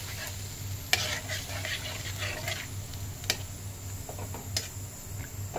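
A spatula stirring watery masala gravy in a non-stick wok: scraping strokes across the pan, three sharp knocks of the spatula against the pan, and the gravy sizzling at the hot edges.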